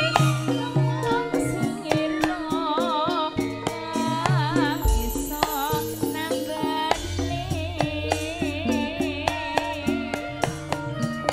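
Music played loud through a large outdoor sound system of stacked 18-inch subwoofer boxes with a hanging column of speakers. It is an Indonesian folk-pop song with a wavering vibrato melody, hand-drum hits and a deep bass line that shifts notes about five seconds in and again near seven seconds.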